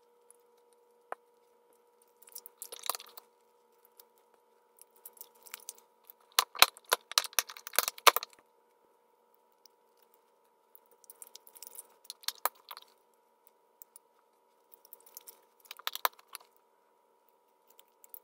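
Foil wrappers being peeled and crinkled off Schmincke Horadam watercolour full pans, in four bursts of crackling, with a few sharp clicks in the longest, middle burst.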